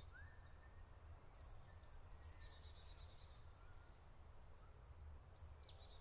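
Faint songbird calls over a low steady rumble. There are several high chirps that drop in pitch and run into a quick trill, plus a short run of rapid high notes in the middle.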